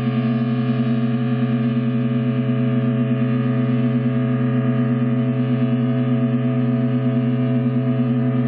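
Sustained experimental drone music from guitar, MIDI controller and balloons: layered steady tones held without a break, the strongest low tone wavering with a fast beat.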